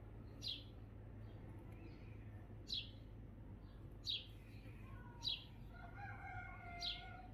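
A small bird gives five short, high chirps that fall in pitch, a second or two apart. Near the end a rooster crows faintly once, over a low steady hum.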